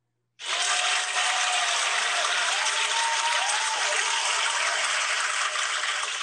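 Recorded crowd applause played as a sound effect. It starts abruptly about half a second in, runs at an even level with a few pitched cries gliding up and down, and cuts off abruptly at the end.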